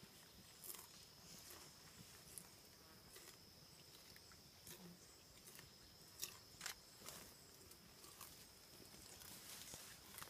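Near-silent rainforest: a faint steady high insect drone, with scattered soft crackles and snaps of vegetation as a mountain gorilla strips and chews plant stems, two of them sharper a little past the middle.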